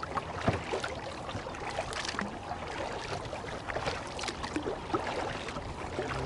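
Kayak paddling on calm water: the paddle blade dipping and lifting, with many small irregular splashes and drips and water lapping at the hull.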